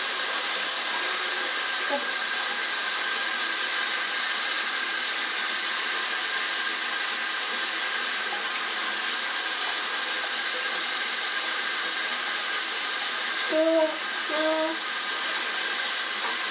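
Water running steadily from a sink tap, an even hiss. A toddler's voice makes two short sounds near the end.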